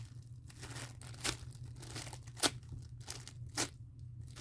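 Foam squishy toy being squeezed hard by hand, with crinkling and three sharp crackles about a second apart.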